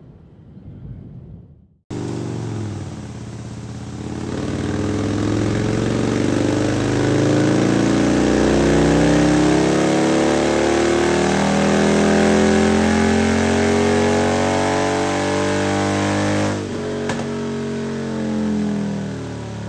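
Harley-Davidson Road Glide's V-twin engine comes in abruptly about two seconds in and revs up steadily in one long, rising pull. The throttle is closed near the end and the revs wind down.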